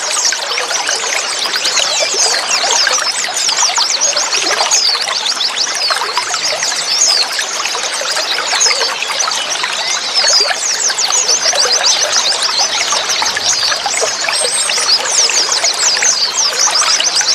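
Running water trickling steadily, with a dense stream of quick, high chirps from white-eyes (pleci) over it.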